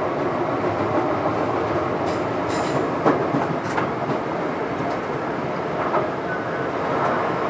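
Electric train running along the track, heard from inside the cab: a steady rumble of wheels on rail, with a few sharp clicks from the wheels about two to four seconds in.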